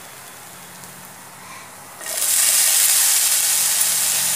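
Onions and green chillies frying in oil in a nonstick pan with a faint sizzle, then about halfway through a sudden, much louder steady sizzle as chopped tomatoes go into the hot oil.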